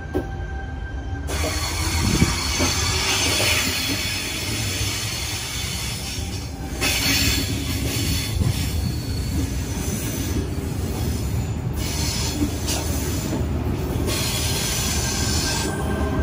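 Sydney Trains electric suburban train pulling out of the platform, its cars rolling past close by with a steady rumble and wheel squeal. The sound grows louder about two seconds in and again about seven seconds in.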